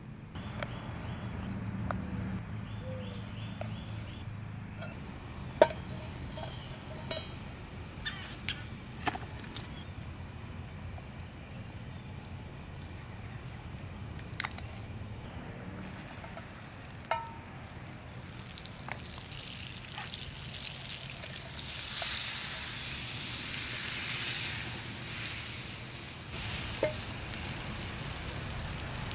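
Butter sizzling and foaming as it melts into hot oil in a frying pan over campfire coals. The sizzle starts a little past halfway and grows loud, easing slightly near the end. Before it there are a few light clicks and knocks.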